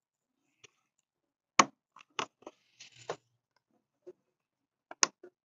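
Several sharp clicks and knocks of parts being handled, the loudest about a second and a half in and another near the end, with a short scrape between.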